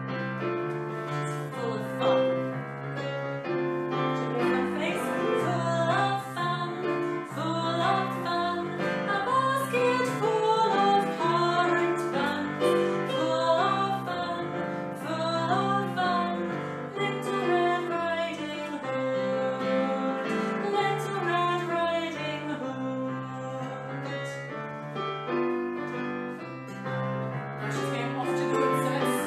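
A woman singing a children's song, accompanied by chords on a digital piano.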